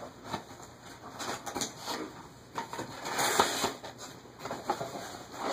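Cardboard card case being broken open by hand: irregular rustling, scraping and tearing with small clicks, loudest about three seconds in.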